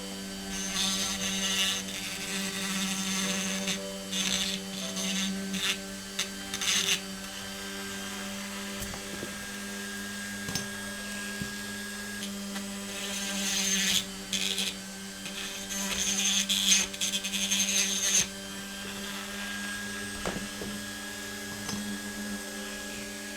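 Small electric drill running steadily, cutting into the base rivets of a diecast Matchbox car to take it apart. The cutting grinds louder in spells, for several seconds near the start and again in the middle, over the even hum of the motor.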